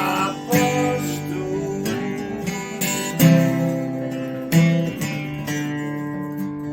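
Strummed acoustic guitar playing the closing chords of a song, each strum ringing out, the sound tailing off toward the end.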